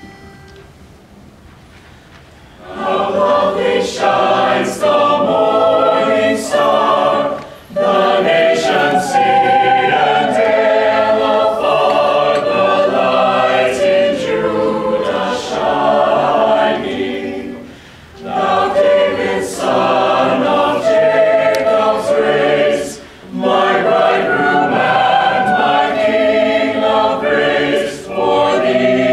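A small choir of men's and women's voices singing unaccompanied. They begin about three seconds in and sing several phrases, with brief breaths between them.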